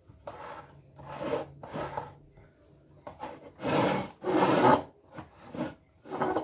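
Wooden battens sliding and scraping across a wooden saw table: a series of rubbing strokes, the two longest and loudest close together near the middle.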